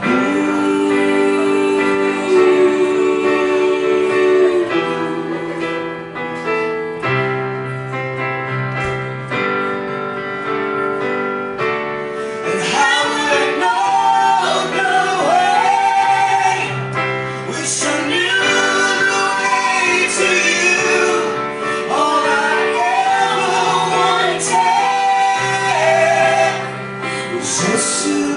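Live song: held instrumental chords, with a woman singing over them from about twelve seconds in, her long notes wavering with vibrato.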